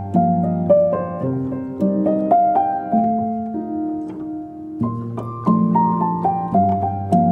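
Background music: a piano-like instrument plays runs of short notes stepping downward over low held notes.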